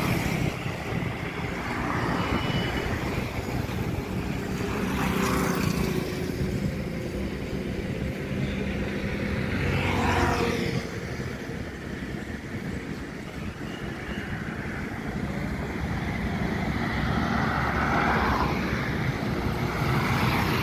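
Motorcycles and scooters passing close by on the road about four times, each swelling and fading, over the steady low rumble of a long freight train rolling past.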